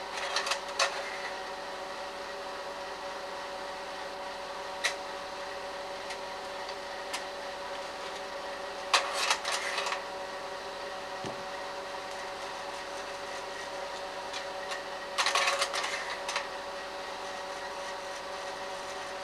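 Slide projector running with a steady motor and fan hum, with short bursts of clicking and clatter from the slide-change mechanism about nine and fifteen seconds in.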